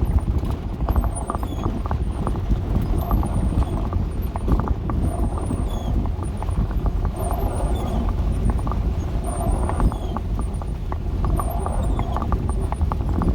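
Dodge A108 van driving over a rough, potholed mud road. A steady low rumble runs under constant rattling and clattering from the body and its loose contents.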